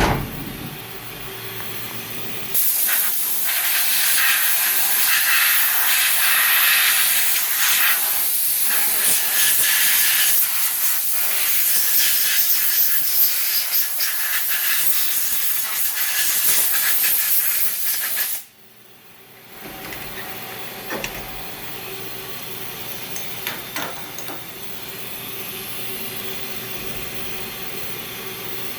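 Haas five-axis CNC mill running a cycle, with a loud steady hiss that switches on about two and a half seconds in and cuts off abruptly about eighteen seconds in. After that, the quieter steady sound of the machine with a few light ticks.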